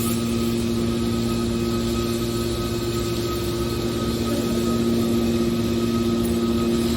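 Automatic hydraulic aluminum scrap baler running: a steady mechanical hum over a noisy wash, getting a little louder about five seconds in.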